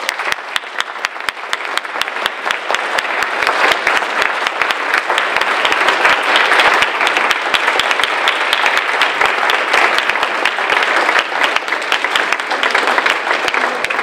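Large audience applauding, the clapping building over the first few seconds and then holding steady and loud.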